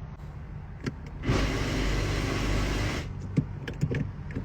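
2012 Hyundai Elantra engine idling steadily, heard inside the car, with a loud rushing whir for about two seconds in the middle and a few light clicks near the end.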